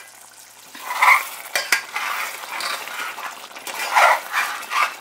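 A ladle stirring a thick, simmering tamarind-garlic gravy in an aluminium pot, scraping and clinking against the pot's sides. The stirring starts about a second in.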